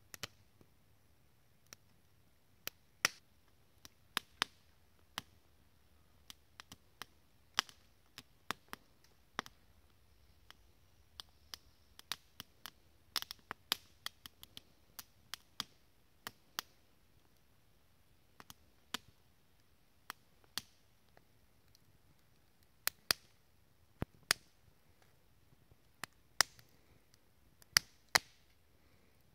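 Wood fire crackling in a Firebox Gen 2 folding stove: irregular sharp pops and snaps, a few of them loud, coming thicker in the middle of the stretch, over a faint steady background.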